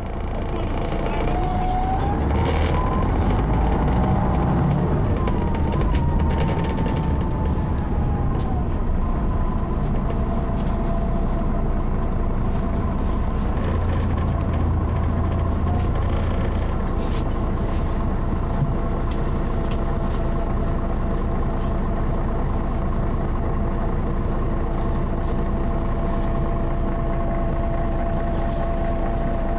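Mercedes-Benz O405N2 city bus running, heard from inside the passenger cabin: a steady low engine rumble, with a rising whine and then a falling whine in the first several seconds, and a steady higher tone from about ten seconds in.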